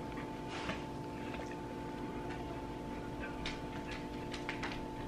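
Makeup blending sponge dabbing foundation onto a face: soft, irregular taps over a steady low electrical hum.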